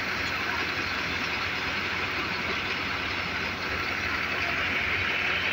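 Pearl millet (bajra) threshing machine running steadily, with the steady hum of its driving engine.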